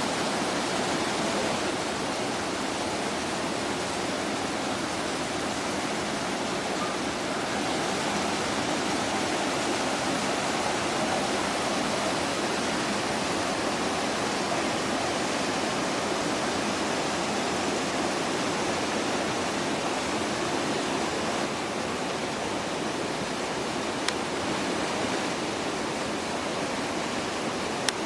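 Waterfall rushing: a steady, even roar of falling water, with a brief faint click about 24 seconds in.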